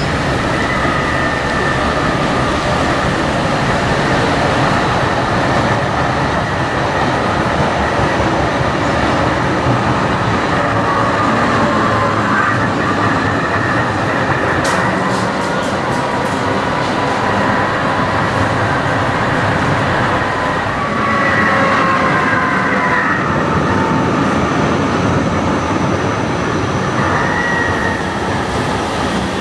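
Oslo SL95 articulated trams running on street track: a steady rolling noise with high, slightly gliding whining tones from the running gear, and a short run of sharp clicks about halfway through.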